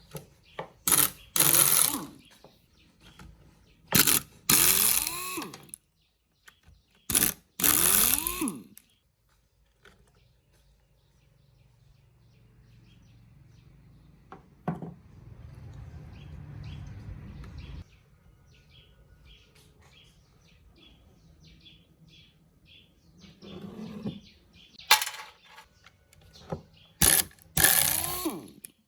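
ECHO chainsaw's recoil starter cord pulled again and again, each pull a quick whirring spin whose pitch rises and falls away, with the engine not catching. Three pulls come close together, then more near the end.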